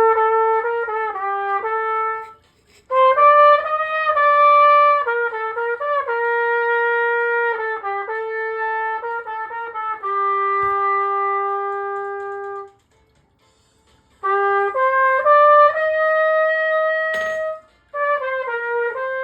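Trumpet played in phrases of held and changing notes, with short pauses between phrases. There is a brief click near the end.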